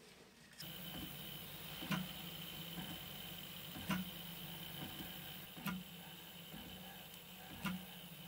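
FDM 3D printer running: a steady hum of its fans and stepper motors with a thin high tone, starting about half a second in, and a sharp click about every two seconds.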